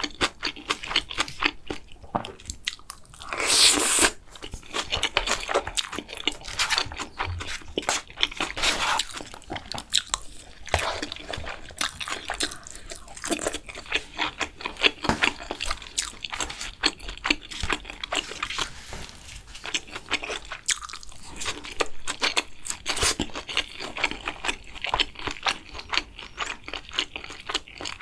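Close-miked eating sounds: a person chewing and crunching mouthfuls of Korean food, with a run of quick wet clicks and smacks, and one louder rushing sound about four seconds in.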